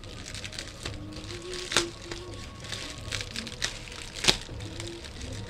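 Plastic air-bubble cushioning wrap crinkling as it is handled, with two sharp cracks, the louder one about four seconds in.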